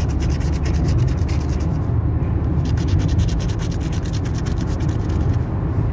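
Lottery scratch-off ticket being scratched in quick, rapid strokes that scrape off the coating. There is a brief pause about two seconds in, then sparser strokes until near the end. A steady low rumble from the moving car runs underneath.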